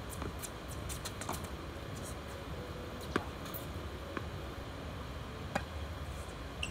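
Tennis ball struck by rackets and bouncing on a hard court: a few sharp, widely spaced knocks, the clearest about three seconds in, over steady outdoor background noise.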